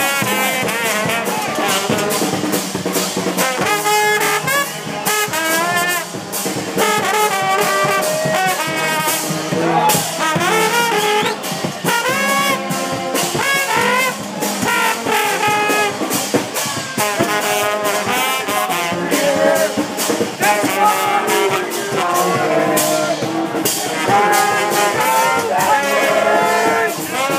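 Many kazoos played together by a crowd, a buzzy tune of held and changing notes.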